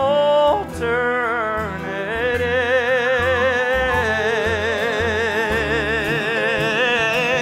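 A male voice singing a show tune over band accompaniment: a few short notes, then from about two seconds in a long high note held with wide vibrato. Bass notes pulse underneath.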